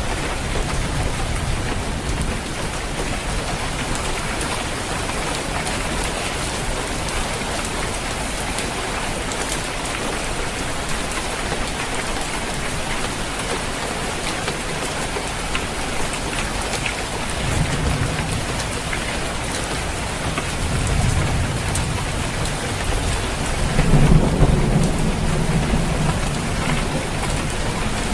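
Steady rain falling on a roof, with low thunder rumbling near the start and several more times in the last third, the loudest roll a few seconds before the end.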